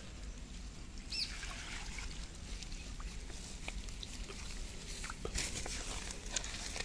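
Quiet outdoor background with faint rustling and light scattered clicks as a fine fishing net holding small fish and mud is handled. There is one short high chirp about a second in.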